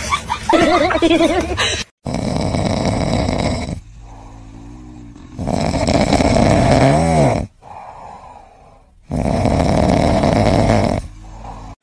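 A sleeping tabby cat snoring loudly: three long snores a few seconds apart, with quieter breaths between. Before them, for about the first two seconds, a wavering pitched sound that cuts off abruptly.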